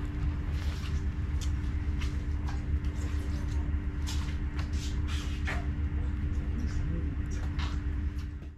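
Steady low mechanical hum with a couple of steady tones above it, and scattered light clicks and taps.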